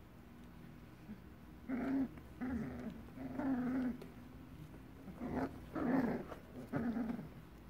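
Three-week-old puppies growling while play-fighting: about six short, high little growls in a row, starting about two seconds in.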